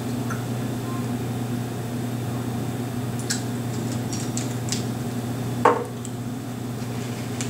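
Steady low room hum, with a few light clicks and taps from an e-liquid dropper bottle and a vape mod being handled. One dull knock, the loudest sound, comes a little over five seconds in, about when the bottle goes back down among the others on the table.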